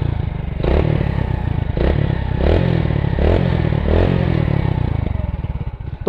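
Hero Honda Splendor's single-cylinder four-stroke engine revved in a series of short throttle blips, rising and falling about five times. There is no clutch-housing knock (khat-khat) under throttle, since the worn clutch housing has been replaced.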